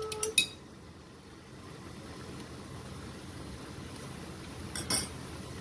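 A steady low hum with a few light clicks near the start and a brief clatter of a kitchen utensil about five seconds in.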